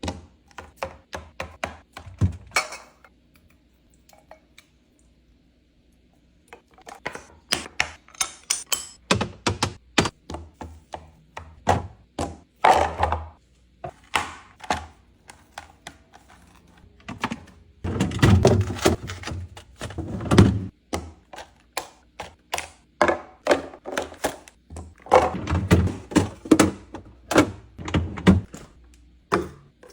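Containers, jars and bottles being set down and moved around on fridge shelves: a fast, irregular run of knocks, clunks and clicks, with a pause of about three seconds near the start.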